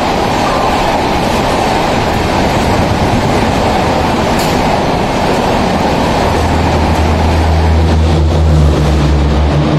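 Indian Railways superfast express train running through a station platform at speed without stopping: a loud, steady rush of coach wheel and air noise. A low steady hum joins in about six seconds in.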